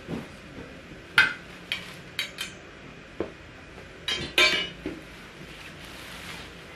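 Metal tubes of a baby bassinet frame clinking and knocking together as they are handled: about ten sharp clanks, some ringing briefly, the loudest a little over a second in and a quick run of them after four seconds.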